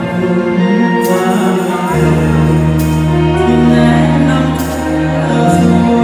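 Loud music with singing, over long held bass notes.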